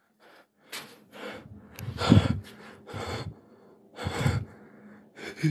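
A person breathing and gasping close to the microphone: about six short breaths with quiet gaps between, the loudest about two seconds in.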